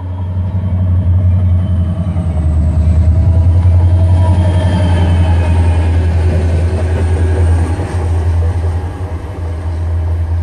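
CSX diesel-electric freight locomotives passing close by: a heavy, steady low engine rumble with wheel and rail noise. It builds to its loudest around the middle, then eases a little.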